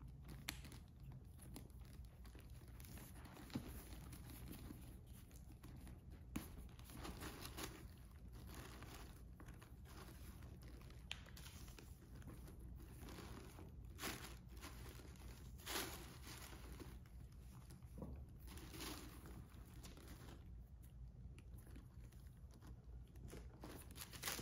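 Faint, irregular rustling and crinkling of tissue paper and felt packing as a handbag's stuffing is handled and lifted out of its box, with a few light knocks, over a low steady hum.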